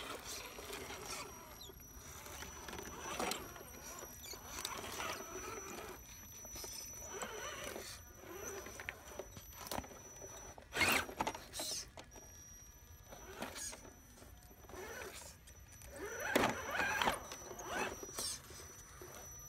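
Axial SCX10 Jeep Wrangler RC crawler's small electric motor and geared drivetrain whining in irregular short bursts as its tyres scrabble over rocks and mud, loudest about eleven seconds in and again late on.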